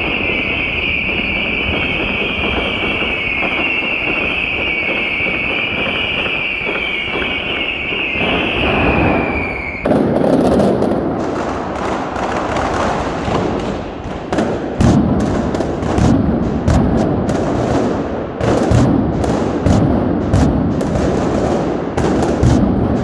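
Street fireworks display. A continuous shrill, wavering whistle from rising whistling fireworks cuts off abruptly about ten seconds in, and is followed by a rapid, irregular string of sharp bangs, crackles and deeper thuds from the bursting shells.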